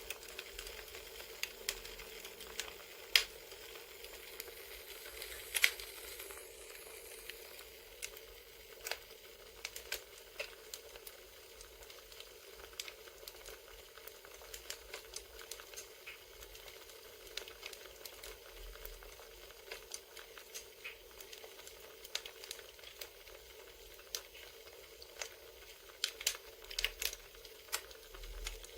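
Campfire crackling: a steady low hiss with scattered sharp pops, a few louder pops now and then and a run of them near the end.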